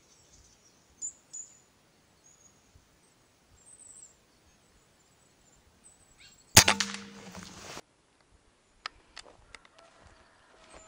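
A single sharp shot from a scoped hunting rifle about two-thirds of the way in, followed by about a second of ringing. Faint high chirps come before it, and a few sharp clicks follow about two seconds after the shot.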